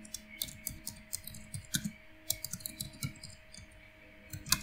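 Computer keyboard being typed on: a run of irregular key clicks, with one sharper click near the end.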